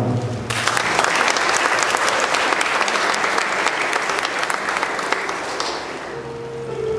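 Audience applauding, breaking out about half a second in and fading away near the end, as a few held musical notes come in underneath.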